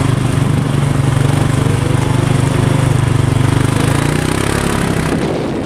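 A vehicle engine running steadily at low, even revs, its hum weakening about four seconds in.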